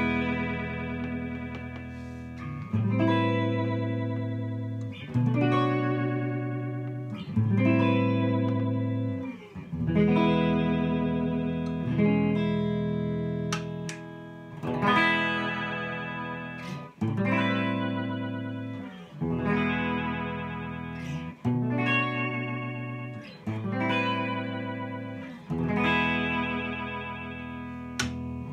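Framus 5/110 Atlantic semi-hollow electric guitar played through a Tone King Gremlin amp: chords strummed with a pick about every two seconds, each left to ring and fade before the next.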